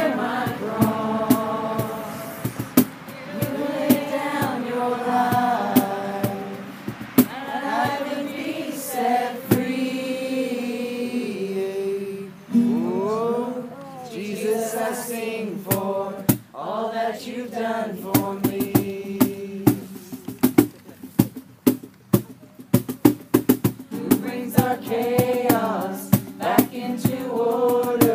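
A small group of children and adults singing a worship song together, several voices on one melody.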